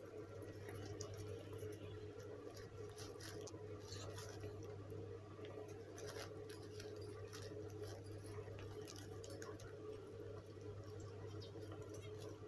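Cats moving in a plastic bag, the plastic giving faint, scattered crinkles and rustles, over a steady low hum.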